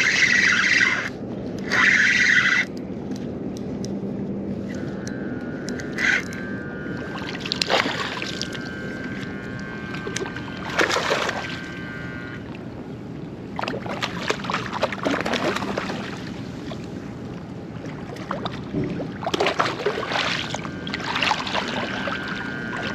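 Water sloshing and splashing around a wading angler and his landing net in shallow bay water, with a few louder splashes spaced through. Two loud rushing bursts in the first three seconds, and a faint steady whine that comes and goes.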